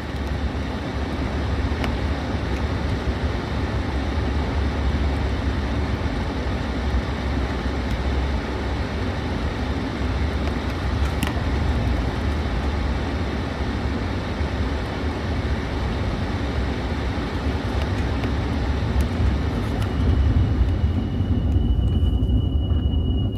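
Suzuki Jimny driving at a steady speed: continuous road, tyre and engine noise with a deep rumble underneath.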